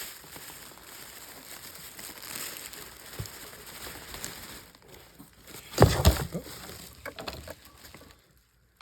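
Rustling and crinkling of packing material and handling noise as hands rummage through a box of model airplanes, with a loud sharp rustle or knock about six seconds in, then a few smaller crinkles.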